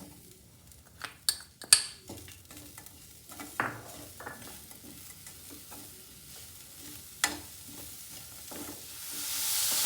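Grated coconut and jaggery being stirred in a kadai with ghee, a spatula knocking sharply against the pan several times. Sizzling swells louder near the end as the jaggery melts in.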